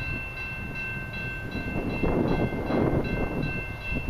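Horn of an approaching Canadian Pacific freight locomotive sounding one long steady chord, heard from a distance. Under it a bell rings rapidly, about three strikes a second, over a low rumble.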